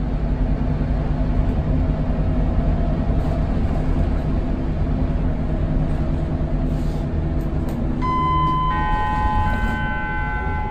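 Scania DC9 9.3-litre five-cylinder diesel of a Scania K280UB bus with a ZF EcoLife automatic, running steadily under way as heard inside the passenger cabin. About eight seconds in, a two-tone electronic chime sounds, the bus's stop-request signal.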